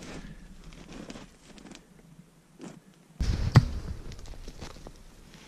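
Footsteps on snowshoes in deep soft snow: soft irregular crunching steps, then a louder thump about three seconds in that fades away.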